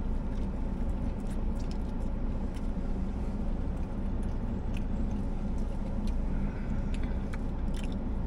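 Steady low hum of a parked car running, heard from inside the cabin, with faint scattered crunching and smacking from someone chewing a bite of crispy fried chicken sandwich.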